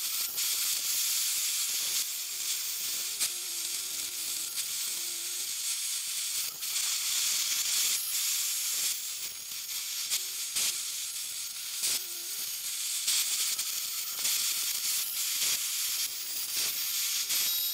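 CNC router spindle running a 1/4-inch end mill through an aspen panel, cutting the profile around its edge: a steady high hiss with scattered short ticks. The sound cuts off just before the end.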